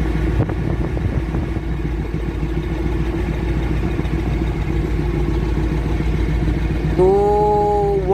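Caterpillar 988F2 wheel loader's diesel engine idling steadily during an injector cut-out test. Near the end a short held tone sounds over it for about a second.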